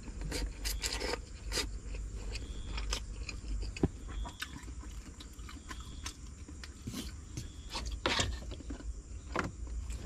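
Eating sounds: chewing and slurping spaghetti, with a bamboo fork knocking and scraping on a wooden plate in short, irregular strokes.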